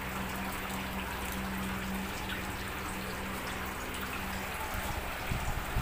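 Evaporative air cooler running: a steady motor hum, with water trickling and dripping from the wet cooling pads into the tank below. A few small knocks come near the end.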